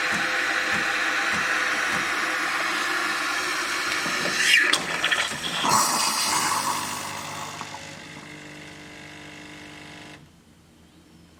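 Siemens EQ500 bean-to-cup coffee machine running its cappuccino cycle: a steady whir with the pump pulsing about three times a second, then a sputtering hiss and gurgle of steam and milk froth around five seconds in. It fades to a quieter hum and cuts off near the end.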